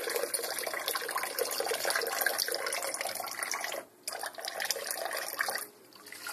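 Thin stream of water poured from a plastic cup, splashing into shallow bathwater in a stainless steel sink. It pauses briefly about four seconds in and again near the end.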